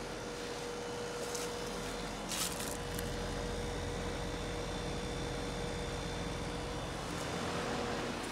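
2019 Lennox Merit 2-ton (ML14XP1) air-conditioner condensing unit running steadily: compressor hum with a steady tone, plus the rush of the condenser fan. A brief rustle about two and a half seconds in.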